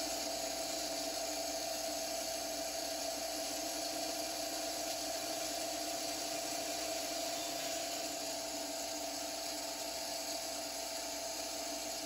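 Bandsaw running with a steady, even hum while a small hardwood pen blank is trimmed.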